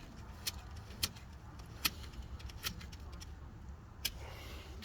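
Scattered sharp metallic clicks and clinks, about five spread over a few seconds, as a brake caliper bolt is threaded in by hand and tools are handled, over a low steady hum.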